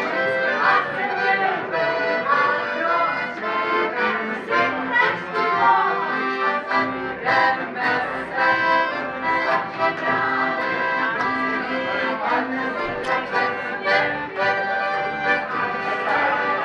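Accordion playing a tune: melody notes over held chords and a regular bass.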